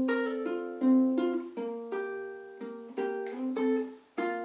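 Ukulele strung with a low G, fingerpicked slowly: single notes and pairs plucked about every half second to a second, each left to ring and fade.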